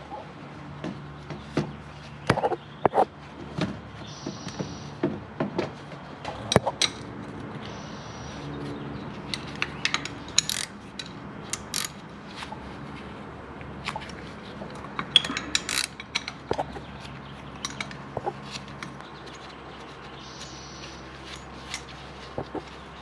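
Hand tools working on the drive shaft's bolts: scattered metallic clicks and clinks, with short runs of quick ratcheting clicks. A faint steady hum comes and goes underneath.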